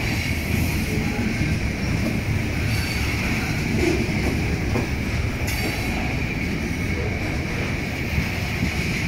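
Covered hopper cars of a heavy freight train rolling past at close range: a steady rumble of wheels on rail with a constant high-pitched wheel squeal over it.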